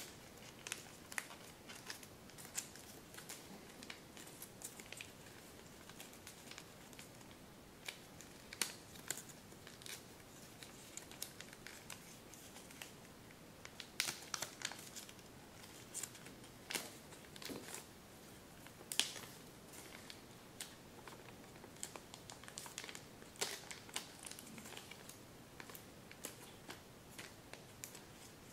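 Kami origami paper crinkling and rustling as hands fold and shape the model, with irregular sharp crackles of the paper; the loudest crackle comes about two-thirds of the way through.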